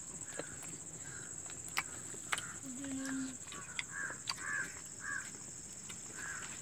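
Crows cawing, scattered at first and then in a quick run of caws in the second half, over a steady high-pitched insect drone. A few sharp clicks are heard along with them.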